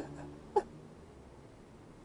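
A man crying: a short, high-pitched sob about half a second in, with the tail of an earlier sob at the start, then faint steady background noise.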